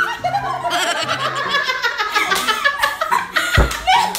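Two women shrieking and laughing hard over background music, with a low thump about three and a half seconds in.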